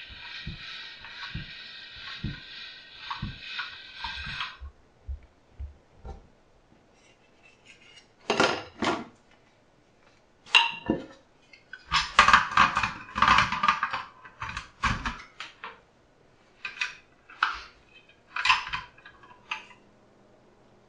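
Hand-cranked all-metal pasta machine turning as a sheet of dough is rolled through: a steady whir with a knock about twice a second, stopping about four and a half seconds in. Later come bursts of metallic clanking and clatter, busiest a little past the middle, as the metal machine and its cutting head are handled and the head is fitted.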